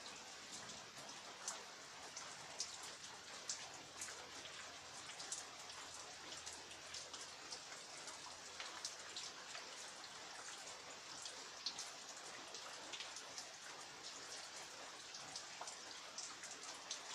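Steady rain falling, a constant hiss with many close, sharp drips and drop impacts scattered through it.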